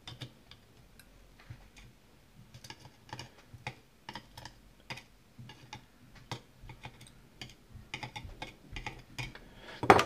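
Irregular light clicks and ticks of steel tweezers picking up and setting down tiny lock pins in a plastic pin tray, with a louder click near the end.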